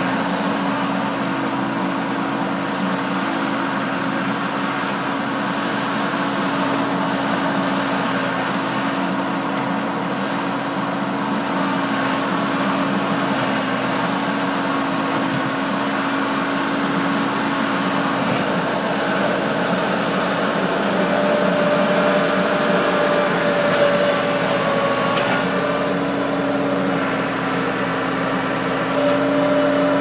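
1980 Case 1845 skid-steer loader's engine running steadily as it works, with a higher tone coming in twice in the second half.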